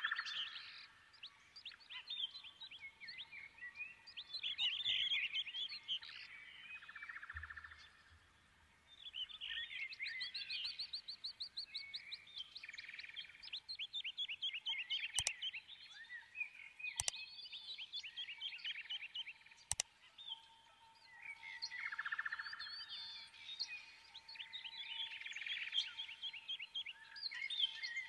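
Songbirds chirping and singing in fast trills, with three sharp clicks in the middle and a faint steady tone in the last part.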